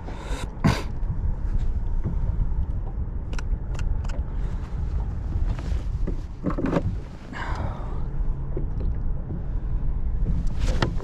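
Steady low rumble of wind and water around an open boat, with sharp clicks and knocks from handling a fish and tackle at the start and a few more scattered through.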